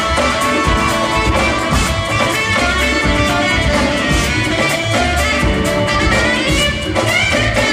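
Jazz-fusion band and orchestra playing live together: electric guitars, keyboards and drum kit over a full ensemble.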